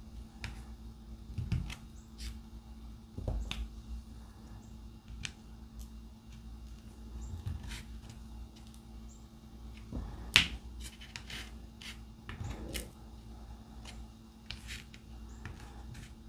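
Scattered small clicks and taps of a diamond painting drill pen picking resin drills from a plastic tray and pressing them onto the canvas, with a few soft knocks and one sharper click about ten seconds in. A faint steady hum runs underneath.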